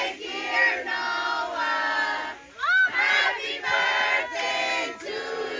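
A group of adults and children singing a birthday song together in phrases of held notes, with a short rising squeal about halfway through.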